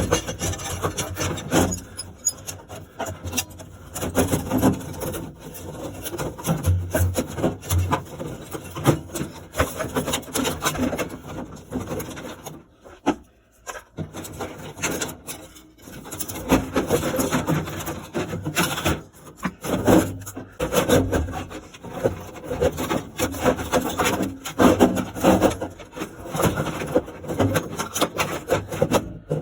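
Irregular stop-start rubbing and scraping with knocks, the sound of hands-on repair work with tools and parts, with a short pause about halfway through.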